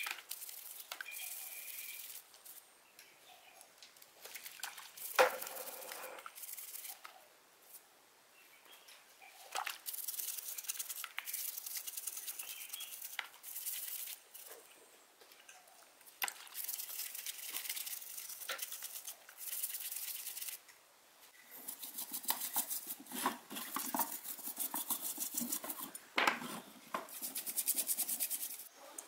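Bursts of fast rubbing strokes on a hard surface, several seconds each, with scattered clicks and a sharp knock about five seconds in.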